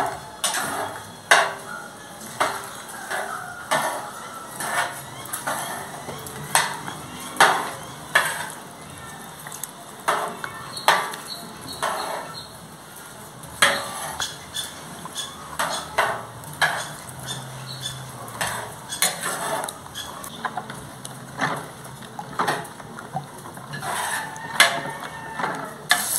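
Metal spoon stirring and beating pumpkin-seed pipián paste with water in a plastic bowl, knocking against the bowl in irregular clacks about once a second.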